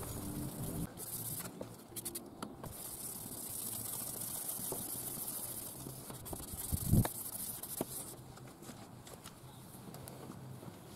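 Abrasive headlight-restoration pad rubbing over a plastic headlight lens, a soft scratchy hiss, with one dull thump about seven seconds in.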